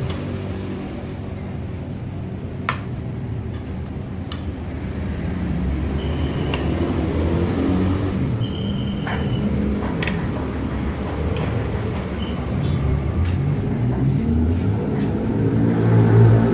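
Steady low engine rumble, like a nearby motor vehicle running, swelling louder near the end. A few sharp clinks of a metal fork and spoon on a porcelain plate sound over it.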